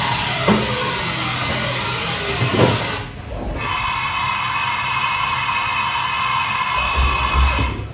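Haas VF-3SS CNC vertical machining center running through moves. For the first three seconds whines glide up and down in pitch, with two clunks. Then a steady whine with a hiss holds for about four seconds and stops just before the end.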